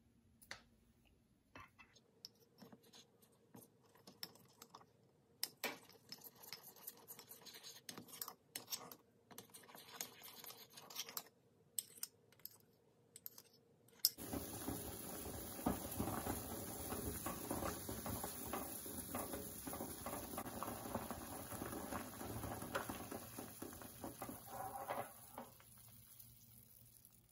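A metal spoon scraping and clinking in a small bowl as a sauce is stirred, in scattered light clicks. About halfway through, this gives way to a steady bubbling of water boiling in a steel saucepan of broccoli, which fades near the end.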